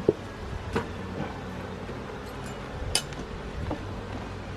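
Steady low hum of honeybees from an opened hive, with a few sharp clicks, the loudest about three seconds in.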